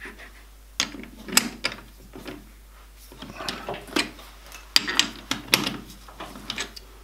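Metal workpiece being clamped back into a metal lathe's chuck by hand, with the lathe stopped: irregular metallic clicks and knocks.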